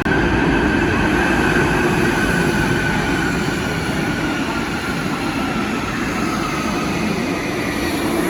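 Train rolling along the rails: a steady, loud rumble of wheels with a high tone that slowly drops in pitch.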